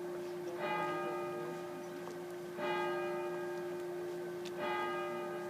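A church bell tolling slowly, struck three times about two seconds apart, each stroke ringing on over a steady lingering hum.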